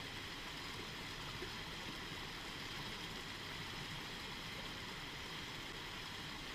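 Steady rush of water running over the rocks and small rapids of a shallow stream.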